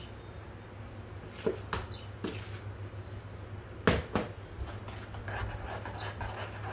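A spoon knocking a few times against a small metal pot, the loudest knock about four seconds in, then scraping as it stirs flour into a yeast starter. A steady low hum runs underneath.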